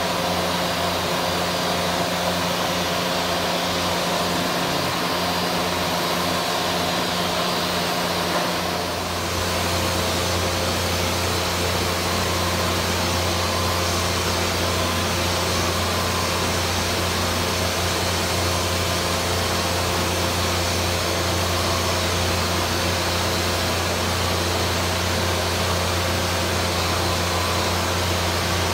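Handheld electric paint sprayer running steadily while spraying primer or paint onto wooden furniture: a continuous motor hum with a rush of air. The tone shifts slightly about nine seconds in, then runs on unchanged.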